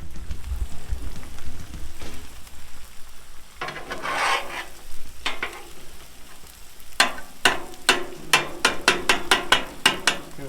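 Metal spatulas scraping and clacking on a Blackstone steel flat-top griddle over the sizzle of eggs and chicken frying. About two-thirds of the way in the spatula strikes turn into a quick run of sharp taps, roughly four a second.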